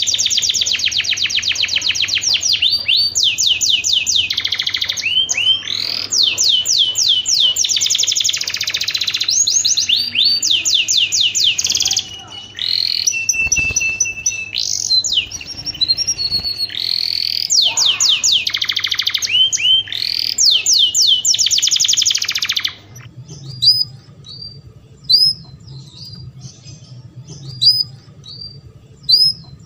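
Canary singing in breeding condition: long bursts of very rapid trills and rolling repeated notes, high-pitched. About three-quarters of the way through the song breaks off, leaving scattered short chirps over a low steady drone.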